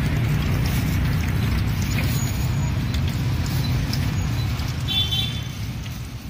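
Street traffic ambience: a steady low rumble of passing vehicles, with a brief high-pitched tone about five seconds in, fading down near the end.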